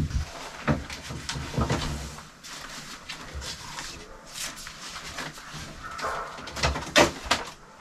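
Old dictation recorder playing back a tape on its own: a garbled, dragging, animal-like voice sound in which no words can be made out, which the couple put down to a flat battery slowing the playback.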